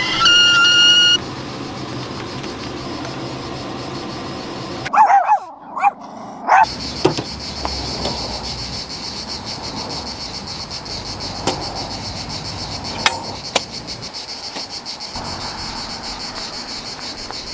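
Stovetop whistling kettle whistling at the boil, a loud steady whistle that cuts off suddenly about a second in. Then a few short dog yaps around five to six seconds in, followed by steady high insect chirring with a few sharp clicks.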